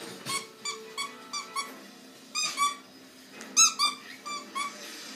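Squeaky dog toy squeezed over and over: about a dozen short, high squeaks, several in quick pairs, the loudest a little past halfway.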